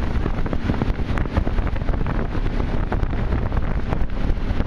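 Wind buffeting the microphone on a moving tow boat, over the steady noise of the boat running and water rushing past.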